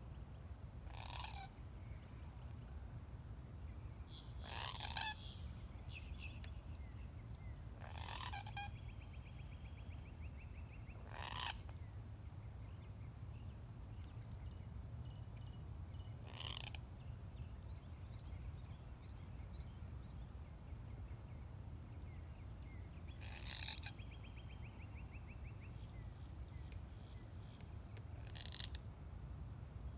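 Wild birds calling: a short, harsh call every few seconds and twice a quick rattling trill, over a steady low rumble.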